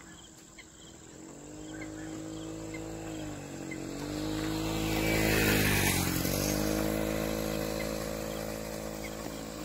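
A motor vehicle's engine passing on the road: the hum grows louder from about a second in, is loudest around the middle with two brief dips in pitch, then slowly fades.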